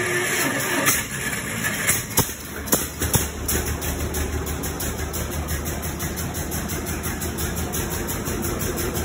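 John Deere Model D's two-cylinder engine running unevenly with a few sharp pops as it catches. From about three and a half seconds in it settles into a steady idle with an even, throbbing beat.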